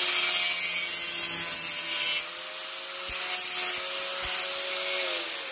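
Small power tool running at a steady speed while cutting off the end of a tube, a hum with a hiss of cutting. The motor winds down near the end.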